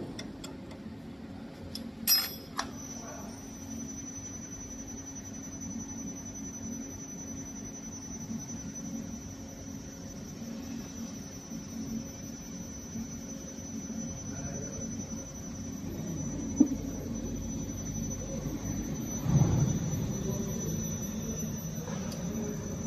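Spiral duct forming machine running steadily, rolling and seaming galvanized steel strip into spiral duct: a steady low hum with a thin high whine that sets in after a brief metallic clatter a couple of seconds in. A sharp click sounds past the middle and a short bump near the end.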